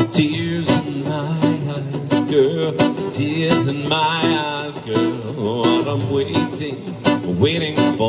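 Live song: a voice singing over plucked string accompaniment, with a wavering held note near the middle.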